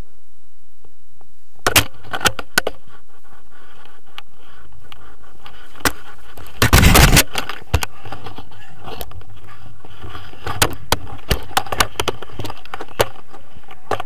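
Knocks and clicks of paraglider harness fittings and a camera mount being jostled during a tandem takeoff run, with wind buffeting the microphone. Scattered knocks begin about two seconds in, a loud rush of noise comes near the middle, and more knocks follow later.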